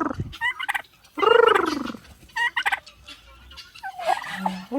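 Cranky turkey hen calling: one long, loud, arching call in the middle, with short higher notes around it and the end and start of other calls at either edge.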